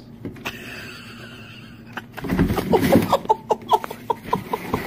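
A person laughing in a rapid run of short "ha-ha" bursts, starting about two and a half seconds in. It comes just after a loud, noisy rustle or thump.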